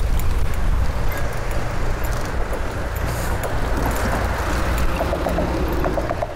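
City road traffic heard from a moving bicycle, with a bus passing close by and a steady low rumble of wind on the microphone. There are scattered light clicks, and a faint wavering tone comes in near the end.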